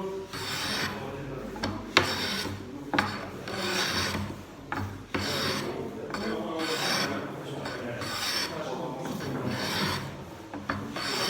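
Hand plane shaving wood in repeated rasping strokes, about one a second, with a few sharp knocks between strokes.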